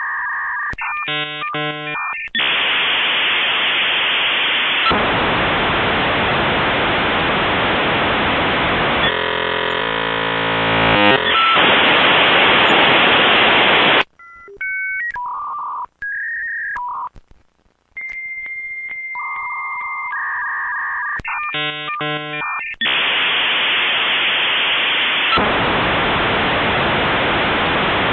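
Dial-up modem handshake: steady high tones and a rapid cluster of beeps give way to long stretches of loud, hissing static-like noise, with a patch of many stacked tones in the middle. About halfway it cuts off into short beeps and brief silences, then the tones, beep cluster and hiss start over.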